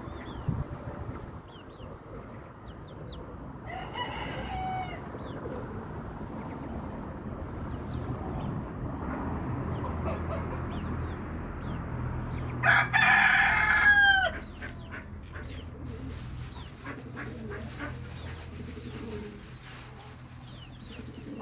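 Rooster crowing twice: a fainter crow about four seconds in and a loud one about thirteen seconds in, each ending in a falling note. Faint short chirps of small birds between them.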